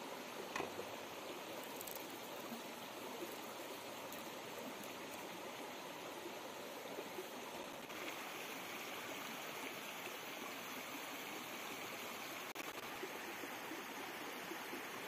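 Shallow stream running over rocks: a steady rush of water, a little hissier from about eight seconds in. A brief click about half a second in.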